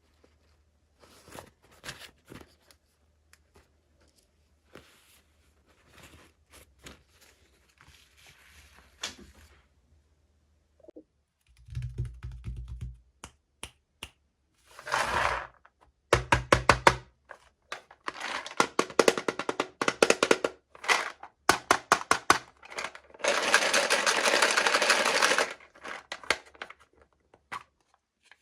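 Toy packaging being handled and opened: scattered light clicks and taps at first, then louder bursts of rustling and crinkling, with one longer stretch of rustling about three quarters of the way through.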